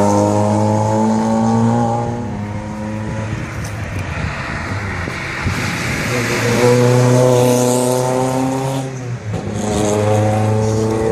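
Rally car engines running hard at high revs as cars pass one after another; the first engine note falls in pitch as the car goes by, and after a noisier gap another car's engine comes in loud again about six and a half seconds in, with a brief break near nine seconds.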